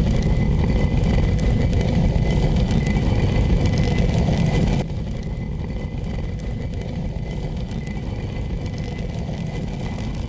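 Rotating millstones grinding wheat into flour: a steady, rough stone-on-stone rumble. It becomes quieter about five seconds in.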